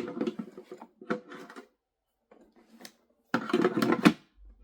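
Hard plastic parts of a coffee maker being handled, giving rapid clattering and clicking in three short spells.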